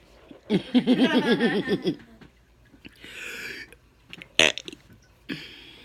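A woman's long, deliberate burp about half a second in, lasting about a second and a half with a wavering pitch. A short breathy hiss and a sharp click follow.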